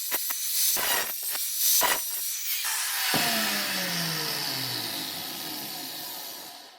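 A power tool grinding or sanding in repeated strokes, then switched off about three seconds in, its motor winding down in a steadily falling pitch until the sound cuts off.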